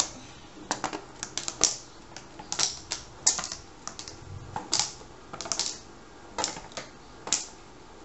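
Paint-covered marbles rolling around a tilted cardboard box, clicking and knocking against its sides in irregular clusters.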